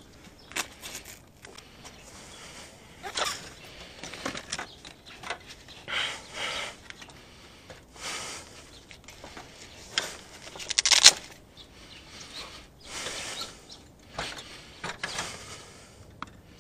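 Intermittent scraping and rustling of handling noise as gloved hands work coax cable and a fitting at the eave, with the loudest scrape about two-thirds of the way through.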